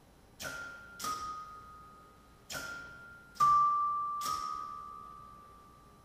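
Tuned chimes struck one at a time by solenoid-driven strikers, playing a slow, sparse melody: five high, bell-like notes, each ringing on and fading, the fourth the loudest. The last note dies away near the end.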